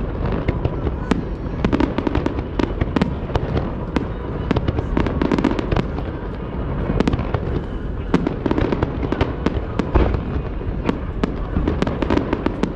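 Fireworks display: many bursts and crackles in quick succession, packed closely over a steady low rumble.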